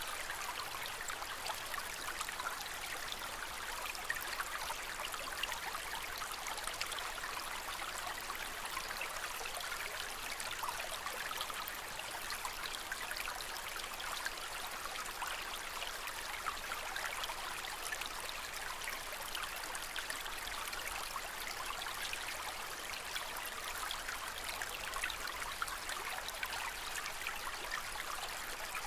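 Steady trickling water in a home aquarium.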